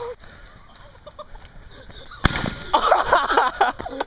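A single sharp firework bang about two seconds in, followed by about a second of loud, excited wordless yelling.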